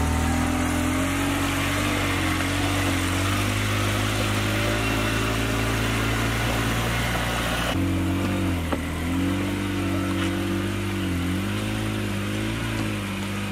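Polaris Ranger 6x6 side-by-side's engine running under a heavy load as it works through mud and a rocky stream crossing. The note holds steady at first, changes abruptly about eight seconds in, then dips and rises several times with the throttle.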